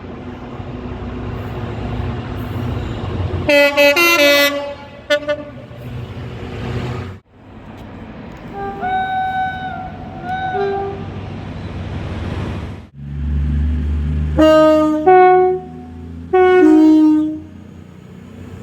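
Train horns from three different passing trains, one after another, with abrupt cuts between them and train rumble under each. There is a quick run of short blasts about 3.5 seconds in, then two softer two-tone blasts around 9 and 10.5 seconds, and then loud two-tone blasts that step down in pitch near 14.5 and 16.5 seconds over a deep engine rumble.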